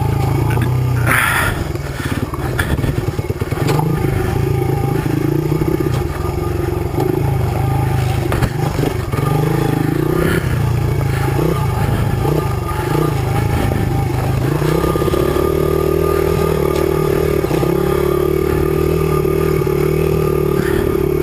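Small 100 cc four-stroke single-cylinder Honda trail bike engine working on and off the throttle over rocky single track, its pitch rising and falling, with rocks knocking and clattering under the bike. In the last third it holds a steadier, higher note.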